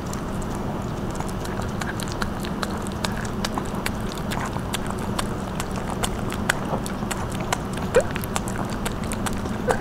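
Two small dogs, a Pomeranian and a Bichon Frise, chewing pieces of dog pizza held out by hand: noisy, irregular wet smacks and crunchy clicks of jaws and lips, with one louder snap about eight seconds in.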